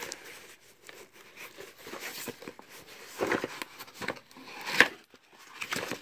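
Cardboard box being opened and handled, its flaps and the papers inside rustling, with scattered knocks and a sharp tap near the end.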